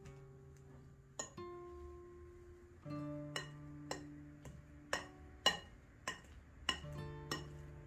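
Acoustic guitar background music, with a fork clinking and scraping against a bowl over and over as boiled potatoes are mashed in it.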